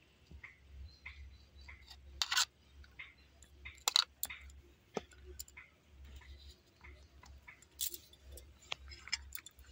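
Faint clicks and short scrapes of a metal spoon against a bowl and plastic cups as liquid ice-cream mix is spooned out, with a soft high chirp repeating about twice a second.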